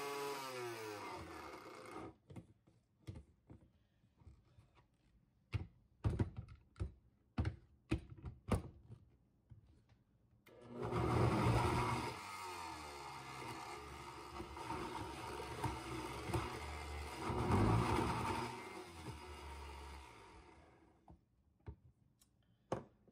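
Blendtec blender motor churning a thick chickpea hummus mix, winding down in the first two seconds. Then come a series of separate knocks and clunks, and the motor runs again for about ten seconds, swelling twice before winding down, with a few clicks near the end.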